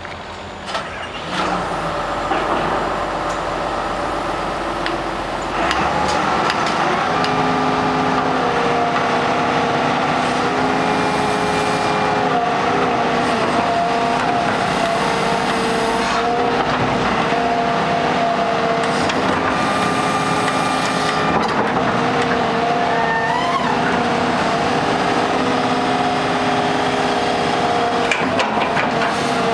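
Kubota KX200-2 excavator's diesel engine running, growing louder about six seconds in, with steady whining tones that shift in pitch now and then.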